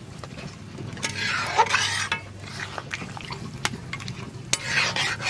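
A metal spatula stirs chicken curry in its gravy in a metal kadai, scraping through the pieces and clinking sharply against the pan a few times.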